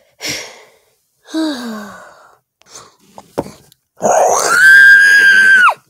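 A person's voice giving a loud, high-pitched scream held steady for nearly two seconds before cutting off abruptly, voicing a plush puppet. Earlier come a short falling groan and a sharp knock.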